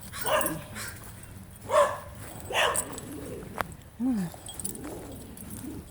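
A dog barking in short bursts, four times in the first three seconds, with a sharp click a little later and a short low, falling sound after that.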